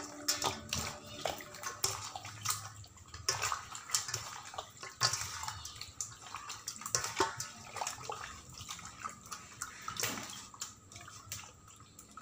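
Hands squishing and turning pieces of pork belly in a wet marinade in a basin: irregular wet squelches and smacks.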